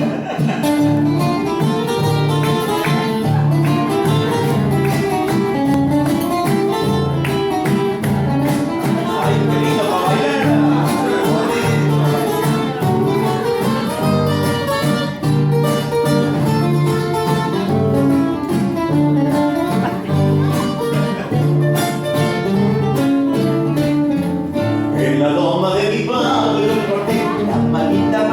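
Acoustic string trio playing: a guitarrón plucking deep bass notes under a guitar and a requinto picking the melody and chords.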